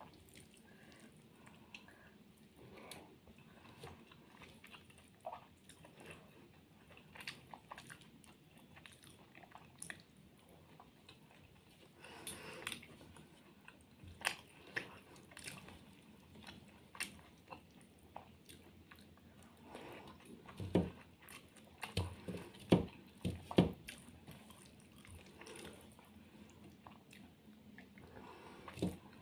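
Person eating rice and fried fish with the fingers: quiet chewing and mouth sounds, with scattered short clicks and soft knocks as fingers mix food on a metal plate, a few of them louder in the second half.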